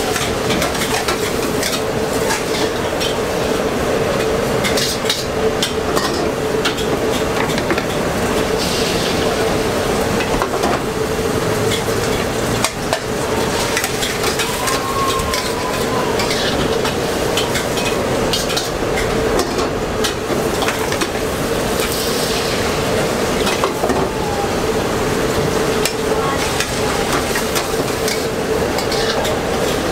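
Egg batter sizzling in a hot wok over a gas burner, with repeated scrapes and clinks of a metal ladle and tongs against the wok, over a steady hum.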